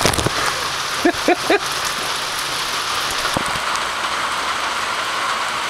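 Steady rain hissing on a bag wrapped around the camera, with a knock at the very start and three short pitched blips about a second in.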